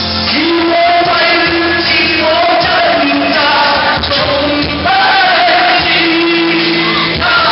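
Men singing into handheld microphones over amplified backing music, holding long notes.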